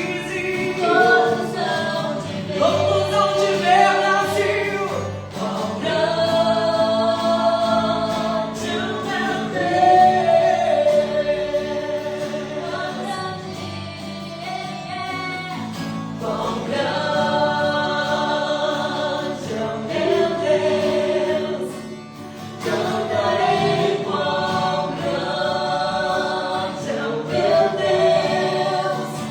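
Gospel worship song: a group of voices singing long held notes over a sustained instrumental accompaniment.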